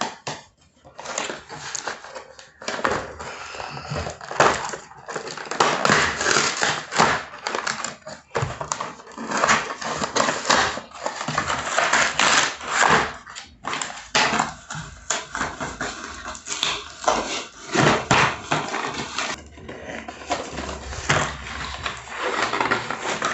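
Toy packaging being opened: cardboard and plastic rustling, crackling and tearing, with many sharp clicks, easing off for a moment near the end.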